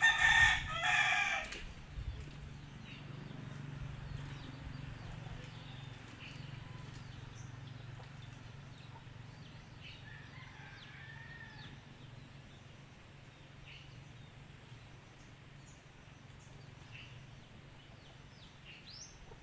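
A rooster crowing once, loud, about a second and a half long, at the start. After it, a steady low hum with faint, scattered bird chirps.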